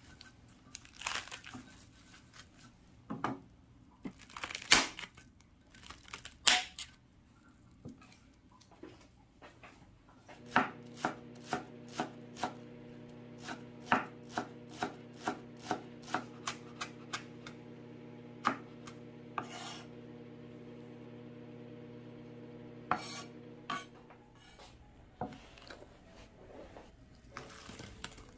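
Kitchen knife chopping on a cutting board: a few scattered strokes, then steady chopping at about two strokes a second for roughly fourteen seconds over a steady low hum, then a few last strokes.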